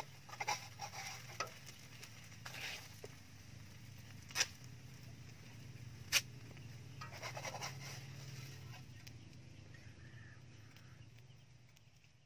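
Metal spoon tapping and scraping in a metal wok as a Khmer crispy crepe (banh chhev) is folded: several sharp clicks over a faint low hum. The sound fades out near the end.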